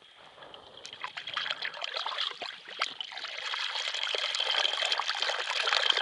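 Water on the river ice draining down a hole in the ice in a whirlpool, trickling and gurgling with many small crackles as it is sucked under. It grows louder over the first few seconds, then stays steady.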